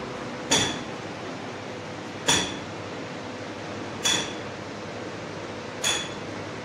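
Four light clinks, evenly spaced a little under two seconds apart, each with a short high ring, over a steady background hum.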